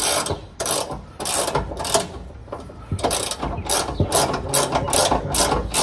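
Hand ratchet wrench clicking in short repeated strokes, about two a second and a little quicker near the end, as a bolt on a car's transmission is worked from underneath.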